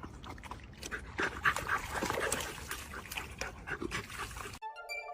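A dog whimpering and yipping over a rough, clicking background noise. Near the end it cuts off suddenly and electronic music takes over.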